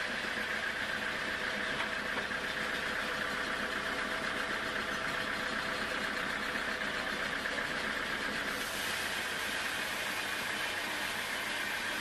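Band sawmill cutting a teak log: the running saw and its drive give a steady mechanical noise with a hissing rasp of the blade in the wood. About eight and a half seconds in, the hiss turns brighter and sharper.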